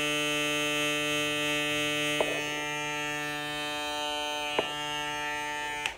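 Andis ProFoil Lithium foil shaver (model 17150) running, its rotary motor giving a steady buzz. There are two light handling knocks, and the shaver is switched off just before the end.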